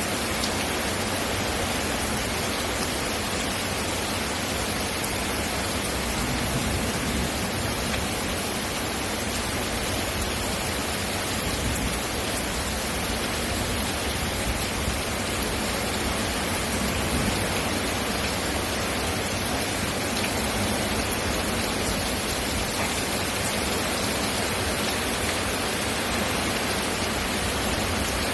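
Steady rain falling, an even dense hiss with no let-up.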